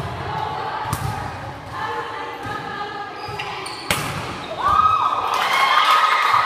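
Volleyball being struck during play: sharp ball contacts about one second in and again near four seconds, the second a spike at the net. Players' voices call throughout, with a long loud shout after the spike.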